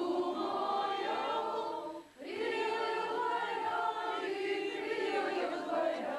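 A choir singing unaccompanied in held, slow chords, with a short break between phrases about two seconds in.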